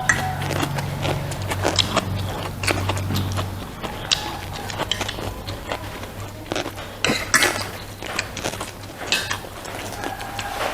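Close-up eating sounds: irregular bites and chewing, with clinks of cutlery on a dish.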